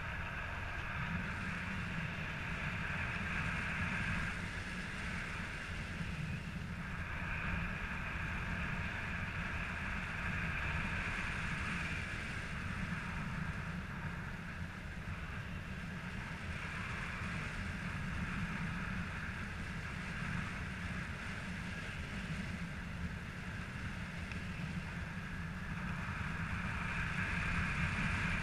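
Wind rushing over the microphone in paraglider flight: a steady, noisy rush with a hissy upper band that swells and eases every few seconds.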